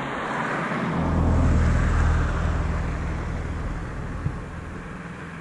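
A motor vehicle passing by: a low engine hum swells to its loudest about one and a half to two seconds in, then fades away.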